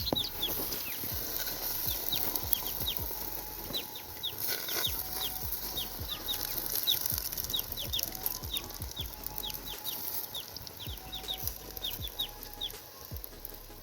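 A small bird chirping over and over, short high notes that drop in pitch, about two a second, with a faint hiss and a few soft knocks beneath.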